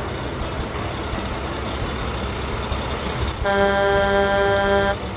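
Truck engine running steadily, with one long horn honk of about a second and a half beginning roughly three and a half seconds in.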